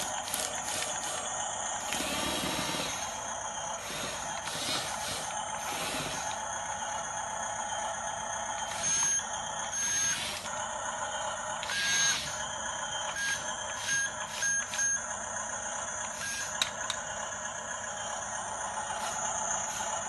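Radio-controlled model bulldozer working, its small electric drive motors whirring with rattling and scraping from the tracks and blade, and short high whines a few times near the middle.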